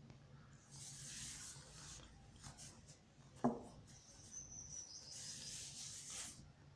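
Faint rustling and rubbing noises in two stretches, with one sharp knock about three and a half seconds in, over a low steady hum.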